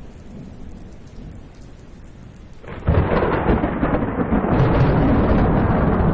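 Thunderstorm ambience: a steady hiss of rain, then about three seconds in a loud rumble of thunder breaks in and keeps rolling.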